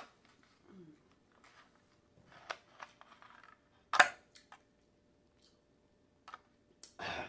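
Plastic fork clicking and scraping against an aluminium foil takeout pan as food is picked up, with scattered small clicks and one sharp click about four seconds in.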